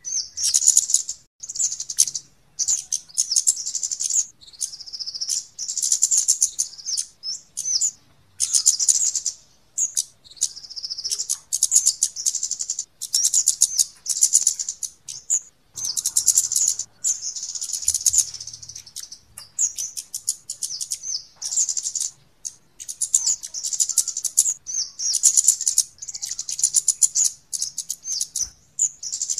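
Lure recording of kemade bird calls, used to attract kemade, cit keres and cabean birds: rapid, very high, thin ticking chirps in bursts of a second or two, repeated over and over with short gaps.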